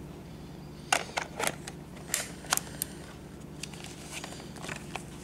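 Handling noise from a plastic VHS-C camcorder and its remote being turned over in the hands: a string of light clicks and knocks, most of them between about one and three seconds in, over a steady low hum.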